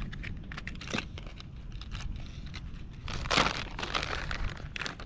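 Plastic soft-plastic lure packet crinkling and rustling as it is handled and opened, with a louder crinkle about three and a half seconds in and another near the end, over a low steady rumble.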